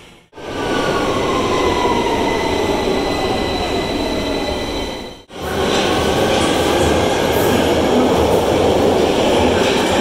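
London Underground Victoria line train running at a tube platform, with loud rumbling wheel and track noise and a thin squeal. In the first few seconds a motor whine falls steadily in pitch as the train slows. After a brief break about five seconds in, the train runs past steadily.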